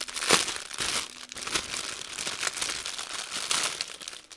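Clear plastic bag of packaged diamond painting drills crinkling and crackling as it is handled and turned over, in a run of irregular crackles, the loudest about a third of a second in.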